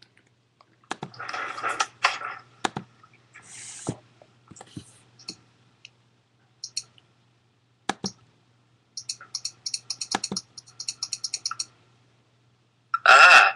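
Computer keyboard and mouse being used: scattered clicks and rustling, then a quick run of key clicks, several a second, from about nine seconds in. A short loud burst of voice near the end.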